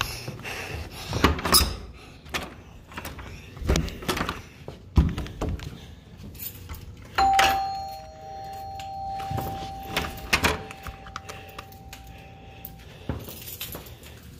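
A two-tone doorbell chime rings about halfway through, a higher note and then a lower one, and both ring on for several seconds. Around it come scattered thumps and rustles from a hand puppet being handled.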